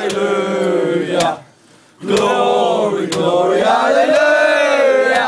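Crowd of male football fans chanting loudly in unison in a packed train carriage, with sharp hits about once a second. The chant breaks off briefly about a second and a half in, then comes back with long held notes.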